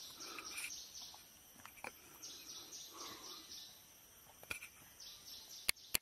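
Forest ambience: insects trilling steadily at a high pitch, broken three times by short bursts of rapid chirping pulses. A few soft knocks, the sharpest near the end.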